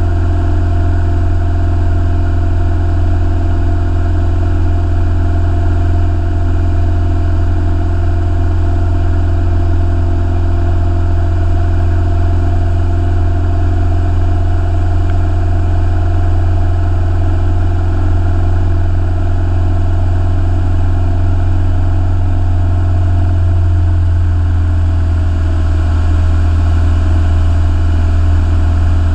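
Piston engine and propeller of a single-engine light aircraft in flight, a loud steady drone heard inside the cabin. A little past three-quarters of the way through the engine note changes slightly.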